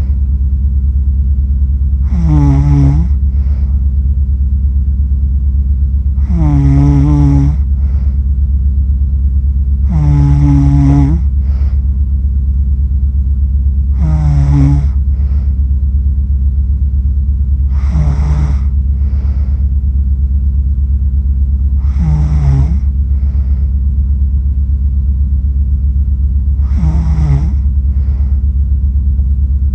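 A sleeping person snoring in slow, regular breaths: seven pitched snores about four seconds apart, each about a second long, each followed by a softer breath. A loud, steady low hum runs underneath.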